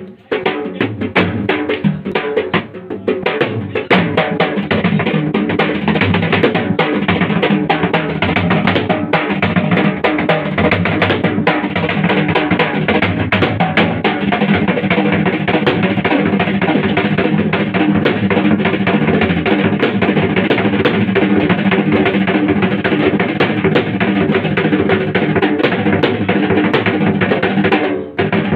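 Two large rope-tensioned, double-headed barrel drums (dhol) played together in a fast, dense rhythm, struck with hand and stick, with a short break in the beat near the end.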